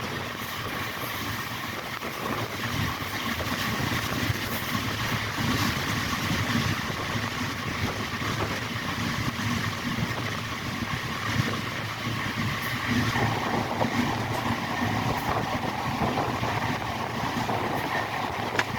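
Train running on the rails, a steady rumble.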